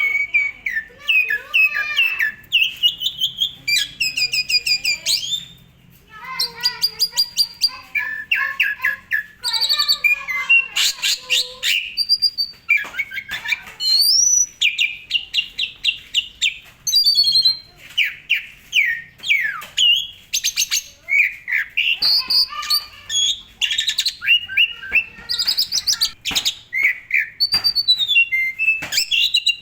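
Asian pied starling (jalak suren) singing non-stop in its full-isian style: a fast, varied stream of clear whistles, sweeping notes, rapid chatter and harsh buzzy phrases, with mimicked bits worked in. There is one brief pause about six seconds in.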